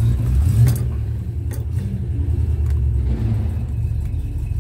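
Rover 3500's V8 engine idling steadily, with three sharp clicks of the steering-column light stalk being worked in the first three seconds.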